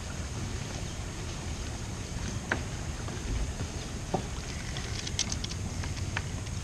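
Steady low rumble of wind on the microphone over open lake water, with a few faint scattered clicks.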